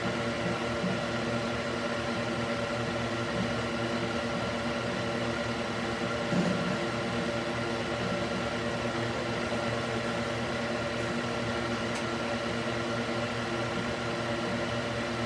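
Electric cooling fan mounted in a wooden box, running steadily: a hum with several steady tones over the rush of air. A brief low bump about six seconds in.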